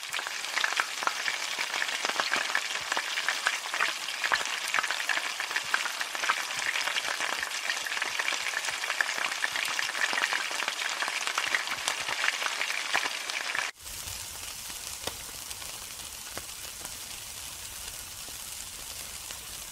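Food frying in hot oil in a wok: a dense, crackling sizzle. About 14 seconds in it cuts abruptly to a quieter, steadier sizzle of meat skewers on a grill.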